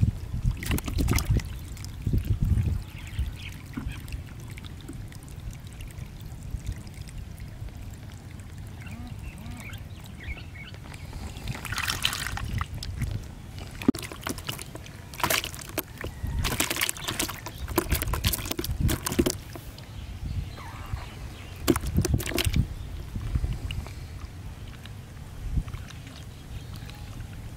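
Small live fish flapping and splashing in a plastic basin of shallow water, in irregular clusters of splashes and slaps.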